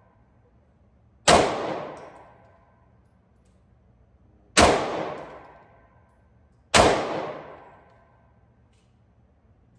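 Three single shots from a Glock 23 pistol firing .40 S&W rounds: one about a second in, one near the middle, and one about two seconds after that. Each sharp report rings out and dies away over about a second.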